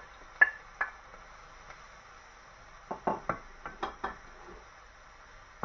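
Wooden spoon knocking against a ceramic plate and a frying pan: two sharp taps near the start as the garlic is knocked off the plate, then a quick run of knocks and scrapes about three seconds in as the chopped vegetables are stirred in the pan.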